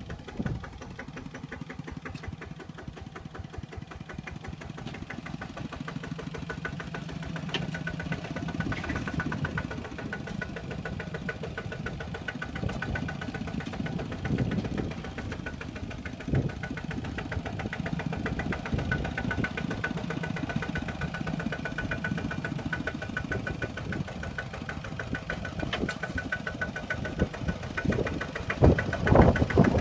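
Kubota two-wheel walking tractor's single-cylinder diesel engine running with a steady, even chug, working under load as it drags a loaded trailer out of mud. It gets louder in surges near the end.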